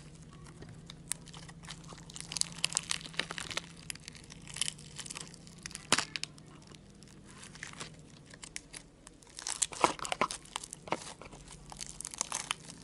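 Foam slime (slime packed with small foam beads) being squished and pulled by hand, giving many small irregular clicks and pops in clusters.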